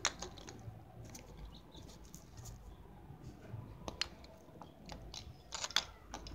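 Spinning tops being picked up and set down on a concrete floor by hand: scattered light clicks and knocks, with a short cluster of louder knocks about five and a half seconds in.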